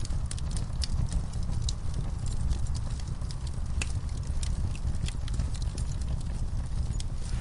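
Wood fire in a fireplace crackling: irregular sharp pops and snaps, several a second, over a low steady rumble.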